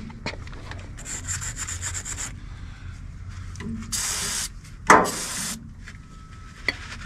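Scrubbing and rubbing at the Ford 2N tractor's engine block in short stretches of quick strokes, cleaning off the spot where the serial number is stamped. A single sharp knock about five seconds in.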